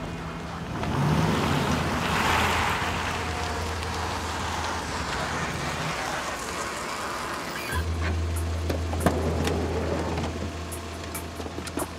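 Ford Transit van driving up on an asphalt street: a rush of tyre and engine noise that swells and fades, then a few clicks and knocks near the end as its door is opened.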